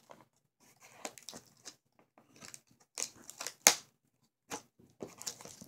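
Cardboard and plastic toy packaging being handled, cut and pulled apart: scattered crinkles, scrapes and small clicks as a boxed blaster is worked loose, with one sharper snap past the middle.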